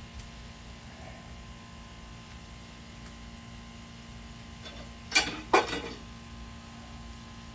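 Two sharp metal clanks about a third of a second apart, a little past halfway, over a steady low hum.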